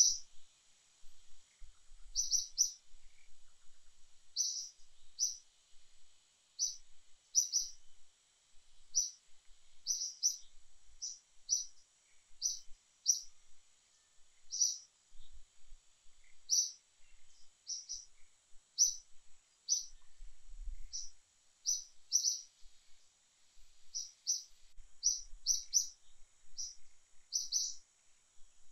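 A bird repeating a short, high chirp, singly or in quick pairs, about once or twice a second, over a faint steady high hiss.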